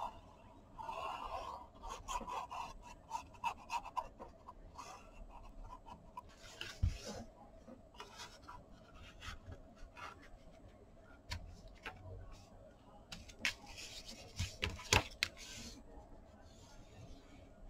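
Kraft cardstock being handled and slid on a cutting mat, with scraping and rubbing as a panel is glued along its edge and then pressed flat with a white folding tool; a few sharper taps come about two-thirds of the way in.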